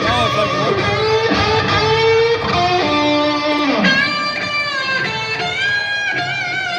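Live rock band playing in an arena, with an electric guitar to the fore holding long notes that bend in pitch, heard from the stands.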